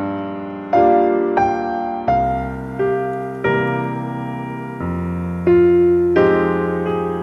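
Background piano music: gentle chords struck every half-second or so, each fading before the next.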